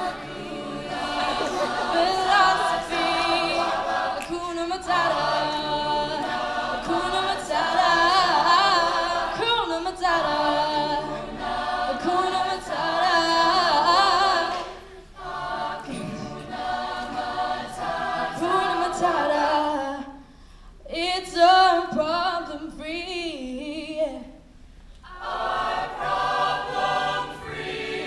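Mixed-voice a cappella choir singing in harmony, without instruments, in phrases separated by a few short breaks.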